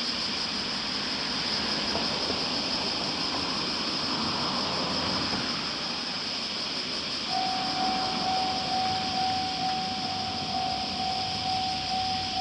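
Steady outdoor background noise, then about seven seconds in a Japanese level crossing's electronic warning bell starts ringing, one tone repeated in a steady pulse: the crossing is signalling an approaching train.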